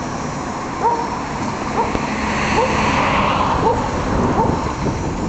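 Stuttgart Stadtbahn light-rail train running on the track as it pulls away: a steady rumble and hiss that swells around the middle. A short rising chirp repeats about every 0.8 seconds throughout.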